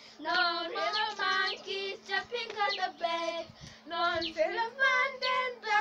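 Young girls singing together without accompaniment, in short melodic phrases.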